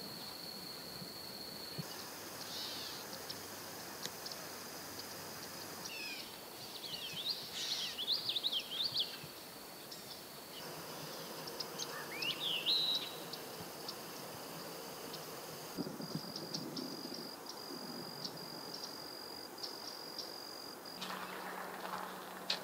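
Outdoor nature sound: a steady high-pitched insect trill, with a flurry of bird chirps around the middle and a rising bird whistle about twelve seconds in. The background changes abruptly several times.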